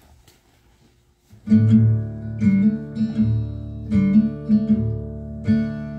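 Near silence for about a second and a half, then a recorded acoustic guitar intro starts, playing a steady rhythm of strummed chords.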